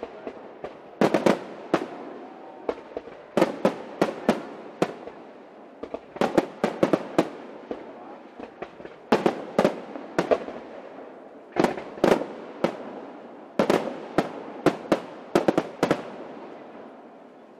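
Aerial fireworks shells bursting in quick clusters of sharp bangs, a few groups every couple of seconds, with echoes rumbling between them. The bangs stop about a second and a half before the end, leaving a fading echo.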